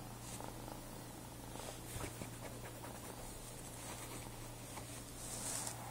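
Domestic cat purring faintly and steadily from under blankets, with a soft rustle about two seconds in.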